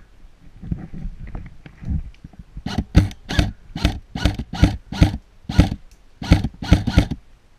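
Running footsteps close to the microphone: about a dozen heavy thudding strides, roughly three a second, starting a few seconds in after quieter shuffling.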